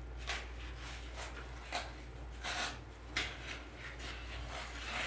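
Irregular rustling and scraping as a foam pumpkin is handled and shifted in a woven wooden basket packed with dry filler, about seven short scratchy strokes, over a low steady hum.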